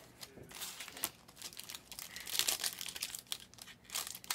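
Foil wrapper of a Panini Donruss Choice basketball card pack crinkling as it is torn open by hand: a run of short crackles, busier in the second half.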